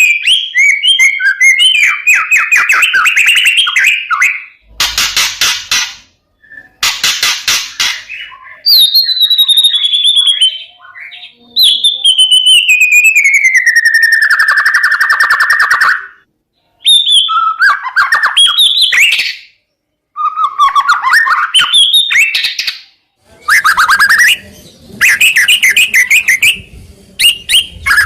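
White-rumped shama (murai batu) singing a loud, varied song: quick trilling phrases, two harsh rattling bursts, and a long whistle that falls in pitch. Short pauses separate the phrases.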